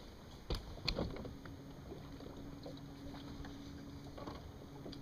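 Faint steady hum of a bass boat's electric trolling motor, starting about a second in, with two light knocks of handling just before.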